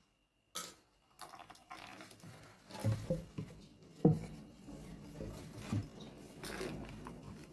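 Handling noise of a flexible metal shower hose moved about on a wooden board: irregular rustling, scraping and clicking, with one sharp knock about four seconds in.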